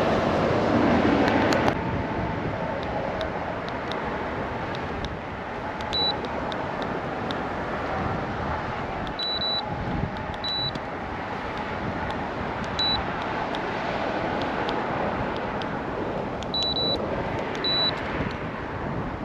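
A loud rushing noise cuts off suddenly about two seconds in. After it comes a steady background hum with several short, high electronic beeps scattered through, some single and some in quick pairs.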